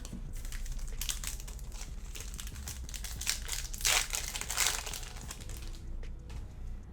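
Plastic wrapper of a Panini Select basketball card pack crinkling and tearing as it is opened by hand, in irregular crackles that are loudest around the middle.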